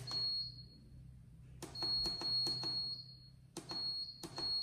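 Saeco Iperautomática coffee vending machine keypad being pressed about eight times, each press a click followed by a short high electronic beep. One press comes at the start, then two quick runs of three or four presses about a second and a half apart.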